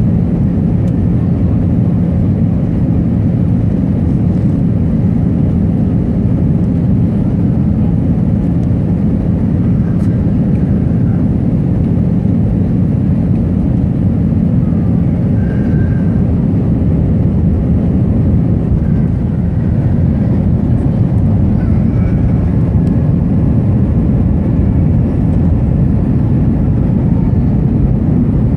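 Airbus A319 cabin noise in flight: a loud, steady roar of engines and airflow with a steady low hum underneath.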